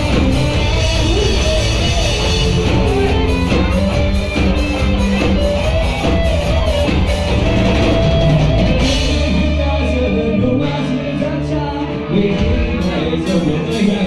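Live rock band playing, with electric guitars, electric bass and drum kit.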